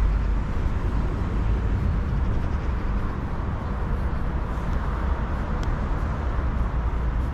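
Steady low rumbling outdoor background noise, without speech, with a faint short tick about five and a half seconds in.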